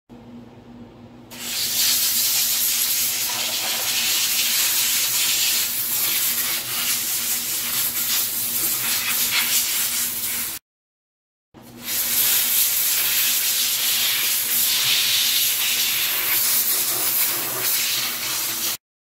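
Steam cleaner jetting steam onto an ice machine's metal evaporator grid for sanitising: a loud, steady hiss, in two long stretches with a sudden break about ten seconds in.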